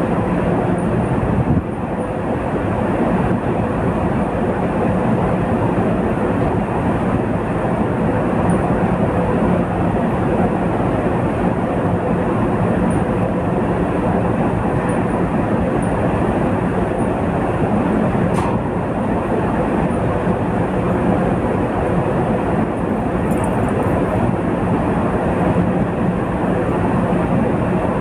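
Steady rumble and hiss of a ship under way: the vessel's engine machinery droning with a constant low hum, mixed with wind and sea noise on the open deck.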